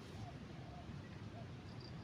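Faint riverside ambience: a low steady rumble with a few faint short calls, and a cricket starting a brief high trill near the end.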